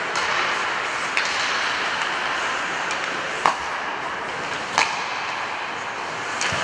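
Ice hockey play: a steady scrape of skates on the ice, broken by a few sharp clacks of sticks and puck, the loudest about halfway through and another shortly after.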